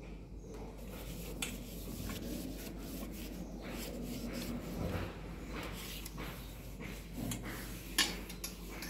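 Low rubbing and scraping noise with scattered light clicks, and a sharper knock about eight seconds in.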